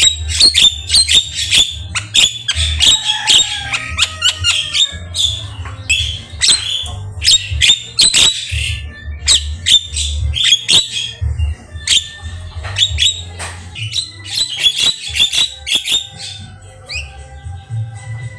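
Javan myna singing a fast, unbroken run of harsh chattering, squawks and short whistled notes, with a pulsing low hum underneath.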